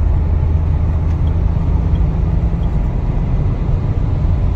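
Steady low rumble of a car on the move, mostly road and engine noise from inside the cabin.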